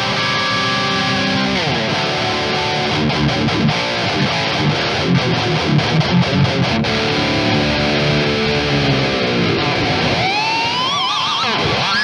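Heavily distorted electric guitar, a Schecter ATX V with Fishman Fluence Modern pickups through a modelled Mesa Boogie Dual Rectifier amp, playing death-metal riffs: held chords that slide down in pitch, then choppy low riffing. Near the end it breaks into warbling, rising high-pitched squeals.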